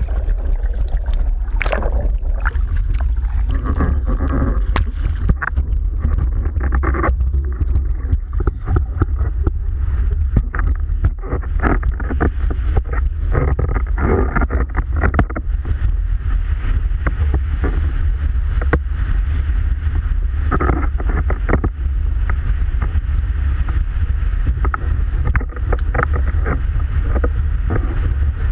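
Tabou Rocket windsurf board planing fast over choppy water, with a constant low rumble and irregular slaps and chatter from the hull. Wind buffets the microphone throughout.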